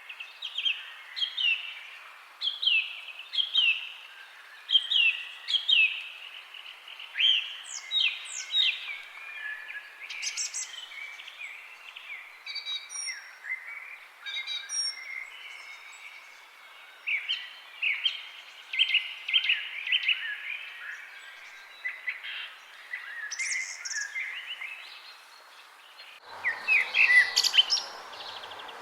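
Several songbirds chirping and singing, mostly short, quick falling chirps repeated about once a second, with some higher thin notes. Near the end a steady rushing hiss comes in suddenly under the birdsong.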